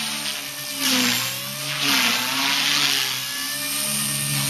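Align T-Rex 250 electric RC helicopter in flight: the steady whine of its motor and spinning rotors, its pitch dipping and recovering a few times as it manoeuvres.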